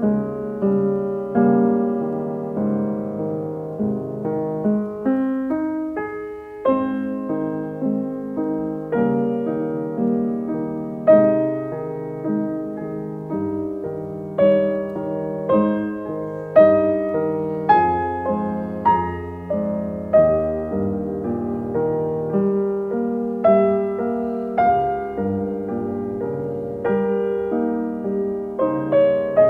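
Background piano music: a continuous run of struck notes, each fading away.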